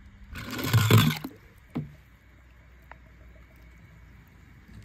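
A small die-cast toy car runs down a glitter-paper ramp and splashes into a plastic tub of water, a rushing splash about a second long, followed by a single light knock.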